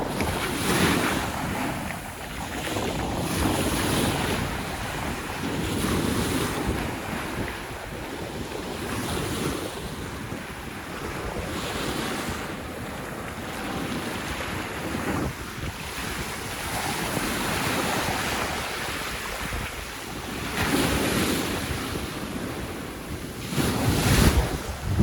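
Sea waves washing onto a sandy beach, the surf swelling and ebbing every few seconds, with wind on the microphone. The loudest surge comes near the end.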